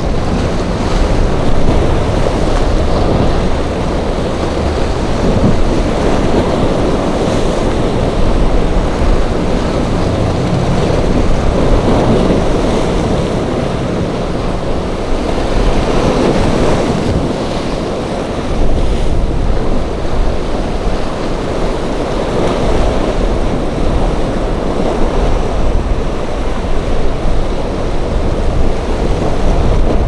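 Strong wind buffeting the microphone, heavy low rumble that swells and eases in gusts, over the steady wash of surf and waves breaking in rough, choppy water.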